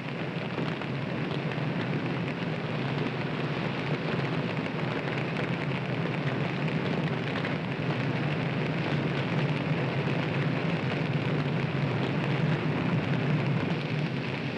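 Wildfire burning through grass and timber: a dense, steady rush with crackling, swelling over about the first second.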